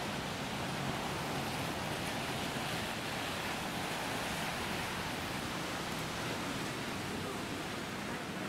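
Steady hiss of rain falling on a wet city street.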